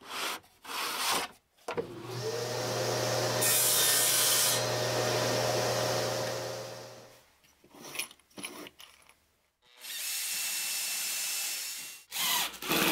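Scrap wood knocking as it is handled, then a table saw motor spinning up, making a short cut through plywood, and winding down over a couple of seconds. After a few more knocks, an 18-volt Makita cordless drill runs steadily for about two seconds, driving a screw into plywood.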